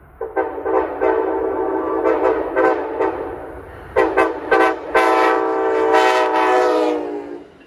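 Amtrak train's Nathan K5LA five-chime air horn, loud: a run of short blasts over the first three seconds, a few more about four seconds in, then one long blast of about two and a half seconds that drops slightly in pitch near the end.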